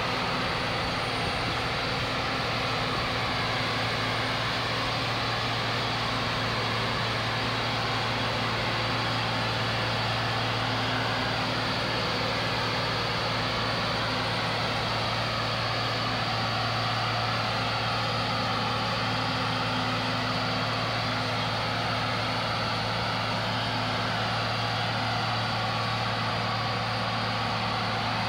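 Self-propelled forage harvester chopping maize, with a tractor and trailer running alongside: a steady heavy diesel drone with a low hum and a constant hiss from the chopping and blowing of the crop.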